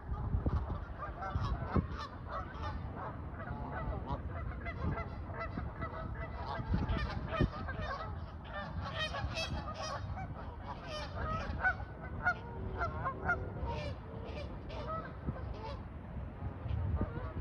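A flock of Canada geese honking: many short honks overlapping one another, busiest in the middle stretch.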